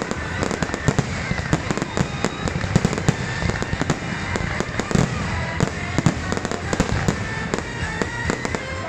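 Fireworks display: aerial shells bursting overhead in a rapid, continuous barrage of sharp bangs over a steady crackling rumble.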